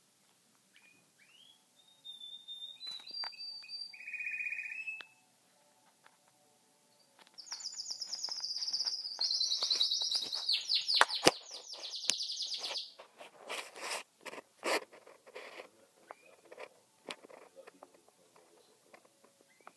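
Canary singing: a few short high whistled notes, then a long fast trill of rapidly repeated notes in the middle, which is the loudest part. It ends in scattered clicks and softer chirps.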